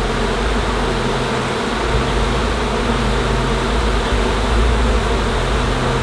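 A honeybee swarm buzzing all around, a dense and steady drone of thousands of bees in flight as they settle into a hive box.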